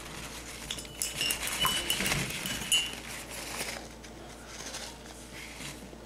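Light clinks and taps of painting supplies being handled, several in the first three seconds, a couple with a short ringing note, then fainter.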